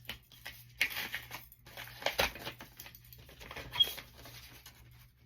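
Packaging paper rustling and crinkling in three short bursts, as a shipping box is opened and its contents handled.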